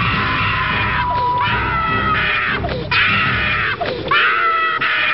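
A woman screaming in terror, a string of long high-pitched shrieks one after another.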